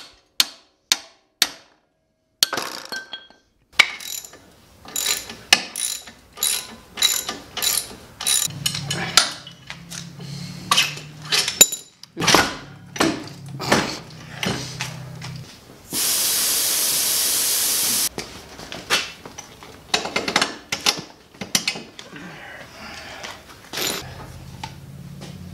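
Hand ratchet wrench clicking and metal tools knocking on a go-kart frame as bolts are undone. A steady hiss lasts about two seconds, about sixteen seconds in.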